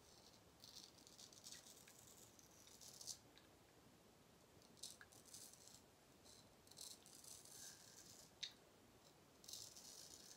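Gold Monkey straight razor scraping stubble off a lathered neck, in several faint clusters of short, rasping strokes.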